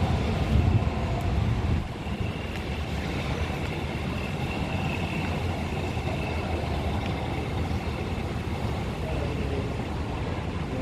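Steady low rumble of traffic, louder for about the first two seconds, with a faint high whine through the middle.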